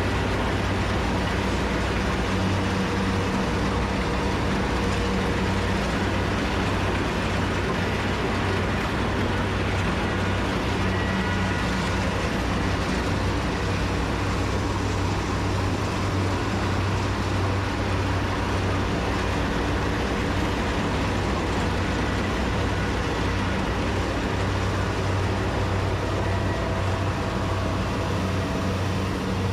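Diesel engine of a Kubota rice combine harvester running steadily at a constant speed, with a low, even drone.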